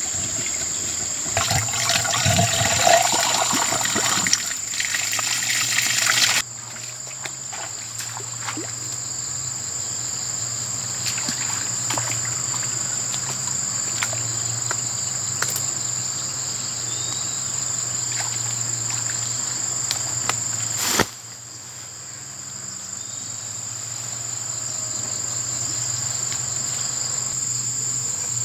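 Water poured from a plastic bucket splashes into a small petrol water pump to prime it, stopping abruptly about six seconds in. A steady high-pitched insect drone goes on behind it and then alone, with a few faint splashes.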